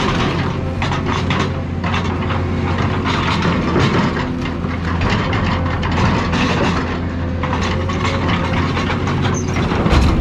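Heavy machine's diesel engine running under load, with repeated irregular crunching and clanking of metal as car bodies are torn apart.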